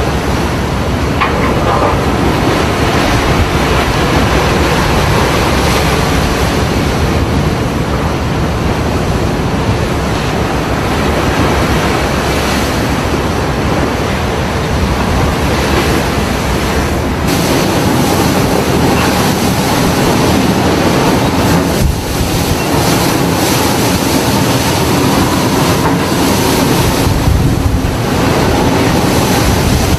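Loud, steady storm noise at sea: wind and breaking waves around a fishing trawler in heavy seas, a continuous rumble with no let-up.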